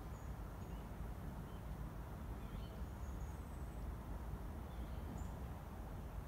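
Outdoor ambience: a steady low rumble with a few faint, brief high bird chirps scattered through it.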